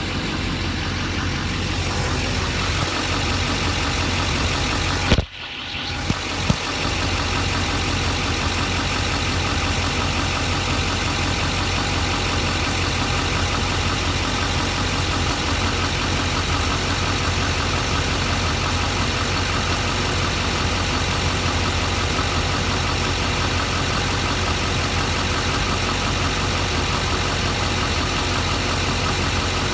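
LBZ Duramax 6.6-litre V8 turbo-diesel idling steadily. About five seconds in there is a sharp knock and a brief dip in the sound, then two small clicks.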